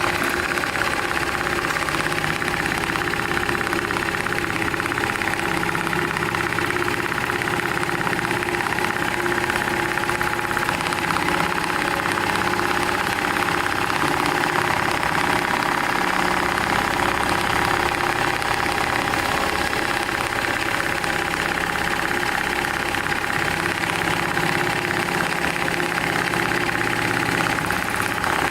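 Programmable profile-stitching industrial sewing machine running steadily, with fast, even needle strokes over a constant motor hum.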